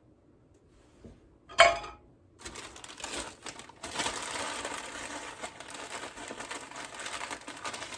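A single sharp clack about a second and a half in, then steady crinkling of packaging.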